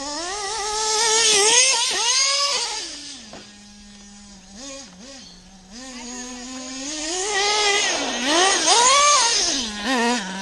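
A nitro-fuelled RC truck's small glow engine revving hard up and down as the truck is driven. It drops to a steady idle for about a second and a half a little after three seconds in, then revs in repeated bursts again.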